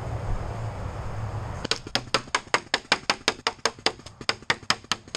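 Kingman Eraser paintball pistol firing a rapid string of about twenty sharp shots, roughly six a second, starting about a second and a half in. Before the shots there is a stretch of steady noise.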